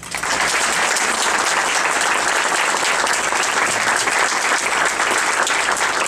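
Audience applauding: a room full of people clapping, loud and steady.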